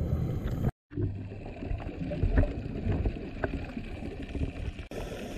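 Underwater ambient sound from dive footage: a muffled, steady watery rumble with faint gurgling and a few light clicks. It follows a brief cut to silence just under a second in.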